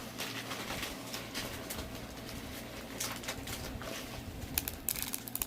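Foam beads being handled and poured from their container: light patter with scattered small clicks.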